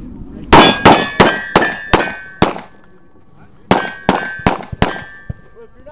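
Pistol shots fired in two quick strings, six and then four, each with the clang of hits on steel targets. The steel plates ring on briefly after each string.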